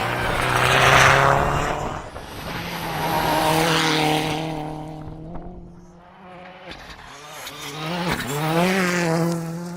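Rally car engine running hard, swelling in loudness and pitch three times as it revs up and drops back.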